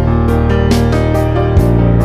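Background music: instrumental track with sustained keyboard and guitar-like chords over a steady bass, changing chord about a second and a half in.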